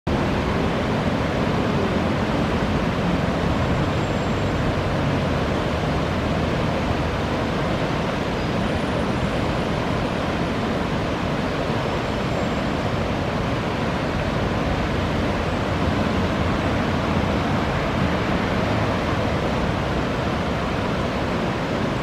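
River rapids rushing steadily, a low, even rush of fast water breaking over rocks.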